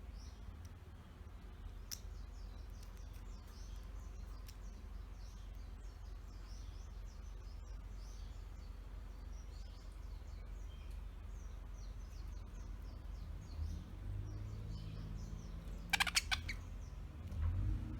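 Young budgerigars chirping and chattering in many short, quick calls, with a brief rattle of clicks near the end.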